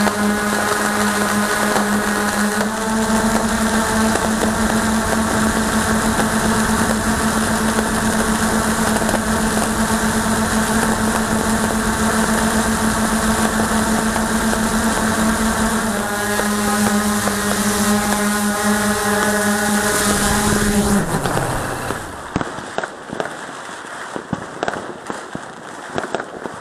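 Ghostdrone 2 quadcopter's motors and propellers humming steadily, shifting pitch slightly a couple of times, then winding down and stopping about 21 seconds in as the drone settles on the ground. After that, distant fireworks pop and crackle.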